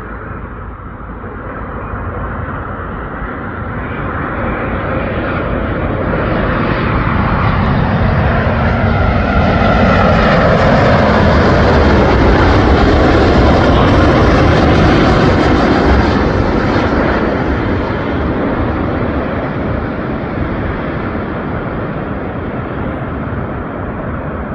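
Boeing 787-10 Dreamliner's jet engines as the airliner flies past on its landing. The rushing engine noise swells, is loudest around the middle, then fades as it moves away.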